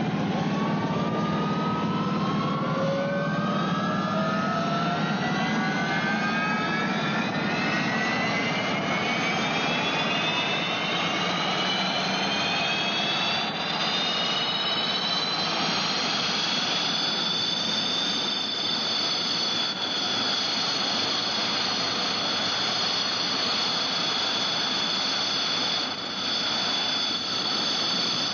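Jet engine spooling up: a rushing roar with a high whine that climbs steadily in pitch for most of the first twenty seconds, then holds at a steady high pitch.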